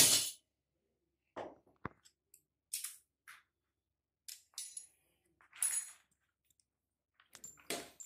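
A loud knock at the start, then scattered light clinks, clicks and rustles from handling a washing machine's plastic outer tub and small metal parts during disassembly, some clinks ringing briefly.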